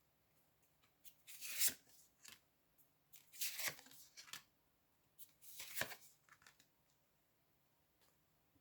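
Tarot cards being handled: three short papery rustles of cards sliding and being laid down, a couple of seconds apart.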